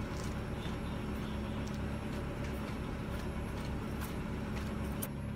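Proton Persona's engine idling steadily: a low, even hum with a faint held tone.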